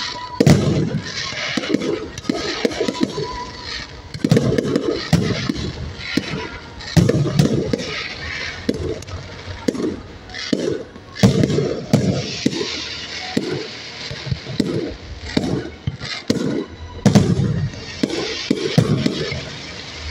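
Aerial fireworks shells bursting: many sharp bangs at irregular intervals, each with a low rumble after it, and spells of crackling from glittering crackle effects between the bangs.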